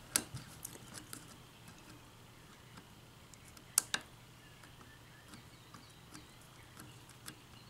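Faint metallic clicks and ticks of a hook pick and tension wrench working the pin stack of a 6-pin Asec padlock during single-pin picking, with one sharper click about four seconds in.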